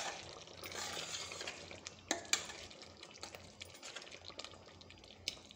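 A handful of seasoning dropped and worked by hand into a steel pot of cooking tomatoes. A soft pouring hiss comes about a second in, and a few sharp clinks against the pot come around two seconds in and again near the end.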